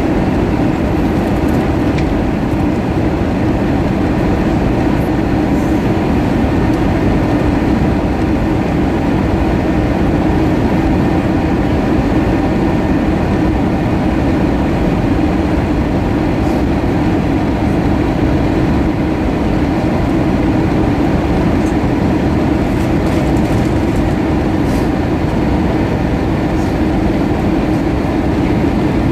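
Steady roar and low rumble inside an Airbus A320 cabin: engine and airflow noise with a constant hum, unchanging throughout.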